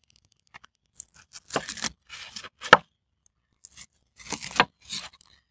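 Weber Deluxe chef's knife slicing through grilled pork ribs on a wooden cutting board: a few short tearing cuts through the meat, with one sharp knock about midway as the blade meets the board.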